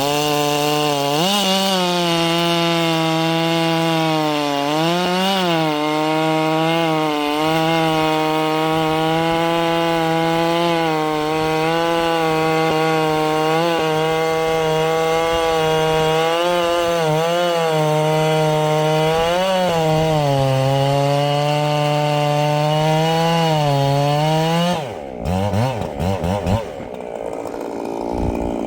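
Ported Echo 7310 two-stroke chainsaw at full throttle cutting through wood, its engine note holding steady with brief dips as the chain loads up. About 25 seconds in, the engine note drops sharply as the throttle is let off, then wavers up and down at lower revs.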